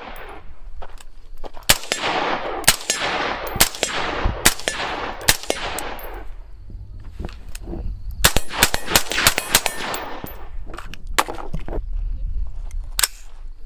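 Suppressed 5.56 AR pistol with an 8-inch barrel and a Wolfpack Armory Disruptor 556K suppressor firing, the can run on a barrel shorter than its rated minimum. First come about five shots a second apart, each trailing a long rolling echo. Then a quick string of about seven shots, then a few more single shots.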